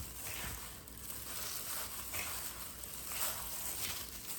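Raw chicken wings being tossed and turned in seasoned flour, making a faint, repeated rustling and scraping.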